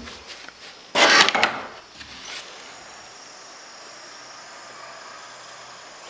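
Wooden scraping and knocking: a few light knocks, then a loud scrape of just under a second about a second in, and a shorter one soon after, as a wooden object is handled.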